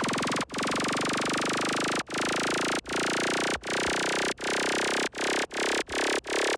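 Dubstep build-up: a dense, buzzy synthesizer sound chopped into repeated stutters that come faster and faster, a rising-tension gate before the drop.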